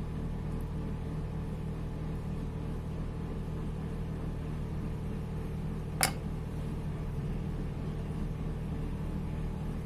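Steady low mechanical hum with several steady tones, and a single sharp click about six seconds in.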